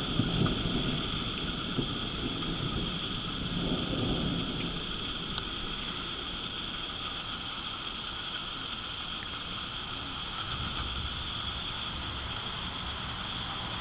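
Distant thunder rumbling low: once at the start, again about four seconds in, and a longer roll near the end, over steady background noise.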